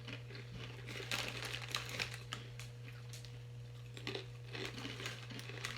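Irregular crisp crunches of baked snack chips being bitten and chewed, in two clusters, over a low steady electrical hum.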